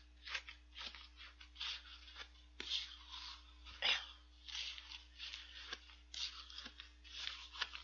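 A spoon stirring and scraping through shaved ice in a cup of red bean bingsu: a run of uneven crunchy scrapes about every half second, with a few sharper clicks against the cup.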